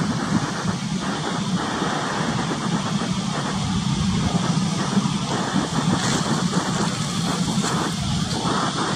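A fishing boat's engine running with a steady low drone, under a fluctuating rushing noise of wind and choppy sea.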